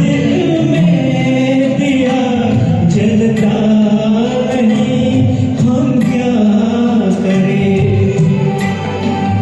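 Singing of a Hindi film song over a karaoke backing track.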